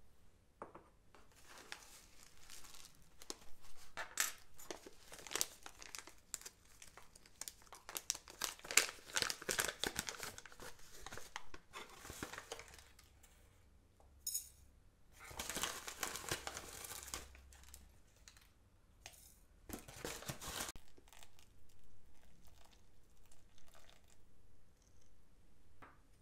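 Crinkling and rustling of a foil-lined tea packet as it is unclipped, opened and handled, dense and crackly for the first half. Dry roasted tea stems are then spooned into the metal infuser basket of a cast-iron teapot, with more bursts of rustling and a few light clicks.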